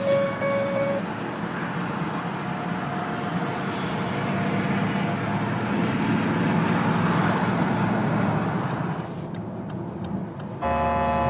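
Porsche Turbo driving, heard from inside the cabin: steady engine and road noise that swells over the middle few seconds as the car gathers speed in fourth and fifth gear. Music fades out at the start and comes back in near the end.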